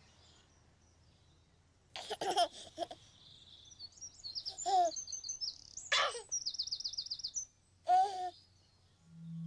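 A baby giggling and cooing in short bursts, with birds chirping between the laughs and a quick trill of high notes a little after the middle.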